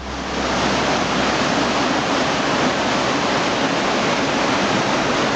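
Steady, even rush of fast-flowing floodwater, coming in abruptly.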